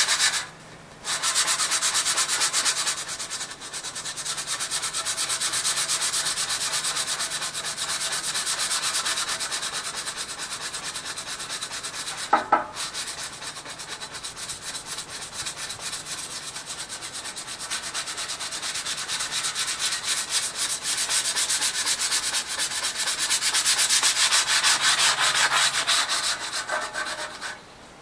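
Sandpaper rubbed quickly back and forth over the lawn tractor's dash panel in a steady run of fast strokes, with a short pause about a second in. It is smoothing out a score line left by a razor blade.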